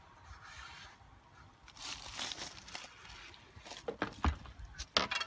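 Rustling, then a few sharp clacks near the end, as archery gear is handled on a plastic storage box.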